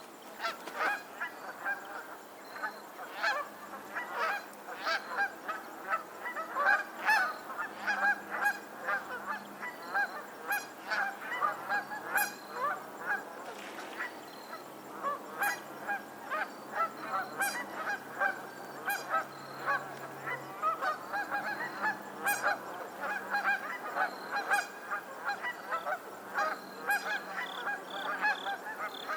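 A flock of geese honking continually, many short calls overlapping one another.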